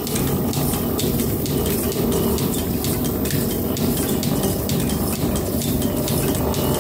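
Metal planer running under power, its table traversing the bed. A steady mechanical running sound carries a fast, irregular metallic ticking and clatter.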